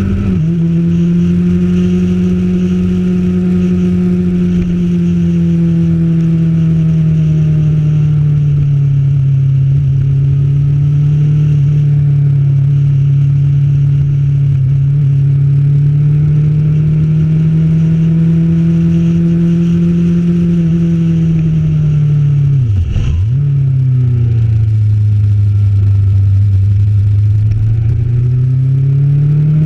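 Motorcycle engine running under way, its pitch rising and falling gently with the throttle through the bends. About three quarters of the way in the revs drop sharply for a moment with a click, as in a gear change, then run lower and climb again near the end.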